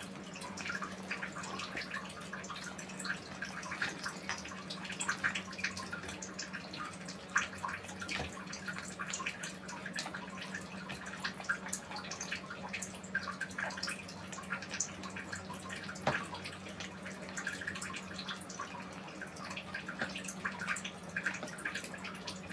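Several kittens eating wet cat food from bowls: a continuous, irregular patter of small wet chewing, licking and smacking clicks. A steady low hum runs underneath.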